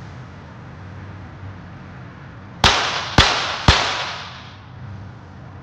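Three .22 Short rapid-fire pistol shots about half a second apart, each followed by a ringing echo. The string stops after the third of the series' five shots, the sign of a pistol malfunction.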